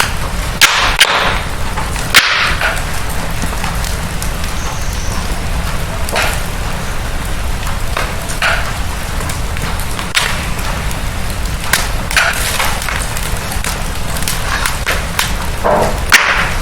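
Wood fire crackling in a fireplace: a steady low rumble and hiss of the flames with sharp, irregular snaps and pops every second or two.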